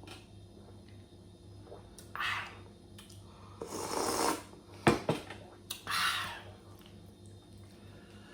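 Eating sounds: a few soft swishing mouth noises and a sharp click about five seconds in.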